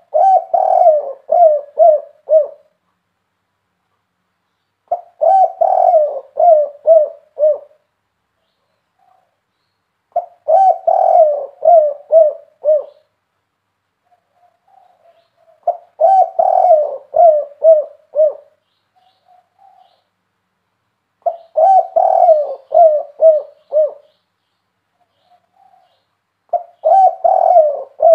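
Spotted dove cooing loudly, a phrase of several short notes that keepers call the 'kuk 3' type. It is repeated about every five and a half seconds, six times, with soft single notes in some of the gaps.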